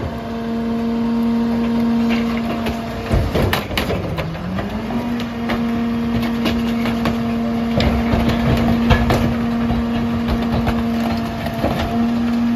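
Heil 5000 rear loader's packer blade compacting bulky trash, with wood cracking and crunching twice, while the Mack LR's engine runs at raised speed to drive the hydraulics. Its pitch sags about three seconds in as it lugs under the compaction load, then recovers.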